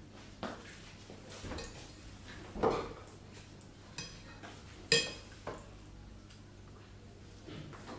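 A metal fork clinking and knocking against a plate of food several times, with the sharpest ringing clink about five seconds in.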